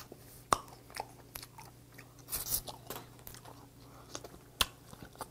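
Close-miked eating: steamed red snow crab meat sucked and chewed from the leg shell, with several sharp clicks and a short slurp about two and a half seconds in.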